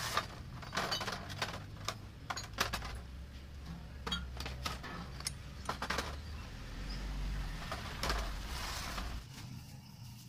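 Glass bottles clinking and knocking together as they are picked up and set down on a store shelf, in irregular sharp clinks. A low rumble runs underneath and fades near the end.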